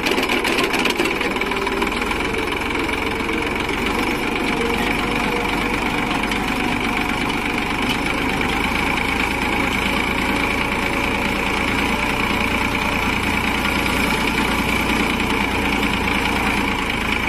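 Tractor engine running steadily, driving a PTO-powered post hole digger whose auger bores into soil. A steady high whine runs through it.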